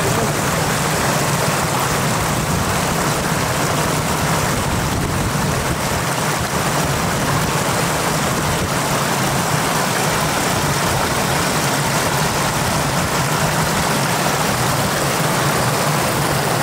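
Shallow floodwater rushing steadily over the ground, a constant hiss of running water.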